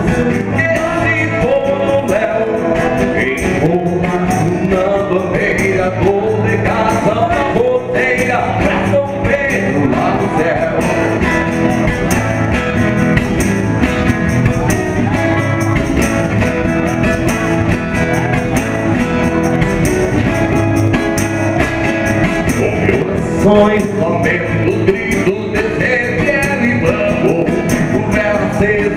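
Live acoustic music: a strummed nylon-string guitar with a hand shaker keeping time, and men singing.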